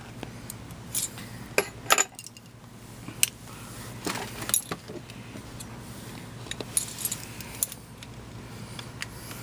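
Steel parts of a Mosin-Nagant rifle bolt clicking and clinking as they are handled and fitted together: irregular sharp metallic clicks, with a denser run of clinks and scraping about four seconds in.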